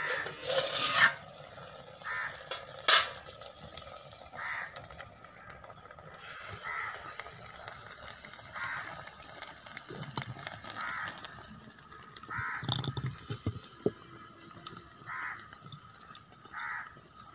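Crows cawing, short single calls every second or two. In the first few seconds there is a clatter of a steel plate lid being lifted off a clay cooking pot.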